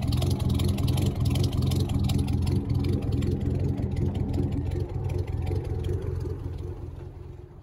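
An engine running steadily with a fast, even pulse, fading out near the end.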